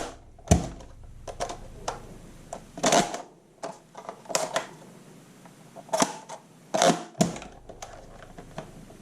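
Plastic clicks and knocks from a Nerf Modulus Mediator blaster being handled, a few single clicks spread irregularly with the loudest about three, six and seven seconds in.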